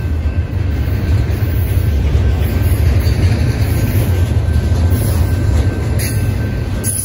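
Double-stack intermodal container freight train rolling past: a loud, steady rumble of wheels on rail.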